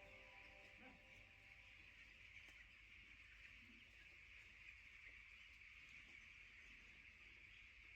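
Near silence: a faint, steady high-pitched hiss, with the last of a piece of background music fading out in the first second.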